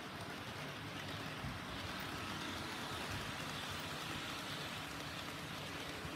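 HO-scale model trains running on the layout's track: a steady rolling rattle of small wheels on rail with motor hum. It grows a little louder midway as a model express train passes close by.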